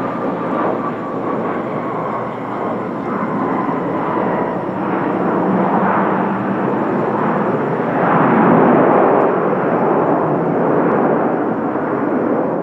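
Jet engines of a Boeing 737-800 passing close by: a loud, steady rush with a faint whine that slowly falls in pitch over the first few seconds. The rush swells about halfway through and stays loud.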